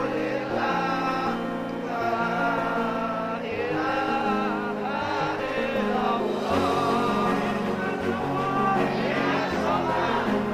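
Music with a sung vocal line over held instrumental notes.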